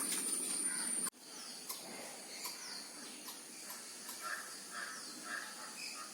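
Outdoor ambience: a steady high-pitched insect drone that cuts off abruptly about a second in, then quieter background with birds calling: a few short falling chirps and a run of about four calls in quick succession.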